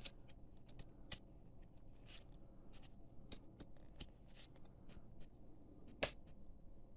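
Trading cards handled and flipped through by hand: faint, scattered light clicks and snaps of card stock, with one sharper snap about six seconds in.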